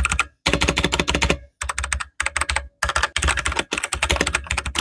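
Typing sound test on a MAGEGEE MK-Star 75 mechanical keyboard, whose switches the owner believes are brown switches: fast keystrokes in quick runs broken by short pauses.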